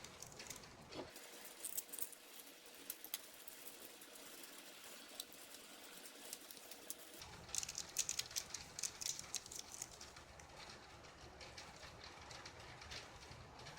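Scattered light clicks and taps of small hardware parts being handled, thickest about eight to ten seconds in. A faint low hum underneath stops about a second in and comes back about seven seconds in.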